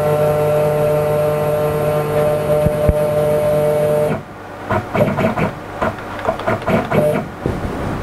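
CNC-converted Sieg X2 mini mill's Z-axis stepper motor jogging the head down toward the work to set the tool's Z height: a steady whine with several tones that cuts off about four seconds in, then a string of short whirring jogs.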